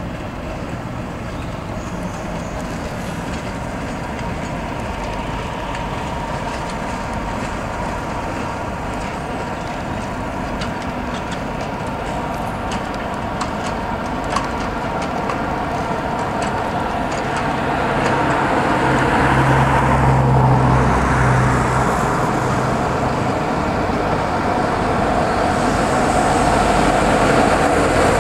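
Class 37 diesel locomotive's English Electric V12 engine running as it hauls a test train past, followed by the coaches rolling by with steady wheel-on-rail noise. A deeper hum swells about two-thirds of the way through, and the sound grows louder toward the end.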